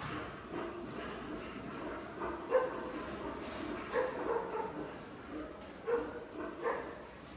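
Short, high animal calls, several of them, coming irregularly every second or two over a steady background.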